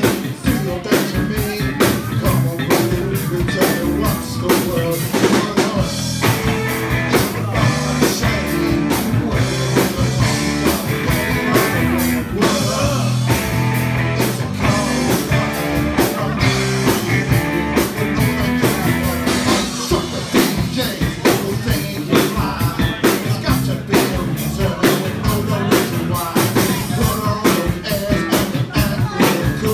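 Rock band playing live, with a steady drum-kit beat and guitar.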